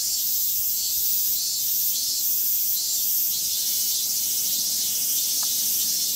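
Cicadas shrilling in a dense, steady high-pitched drone that pulses about twice a second.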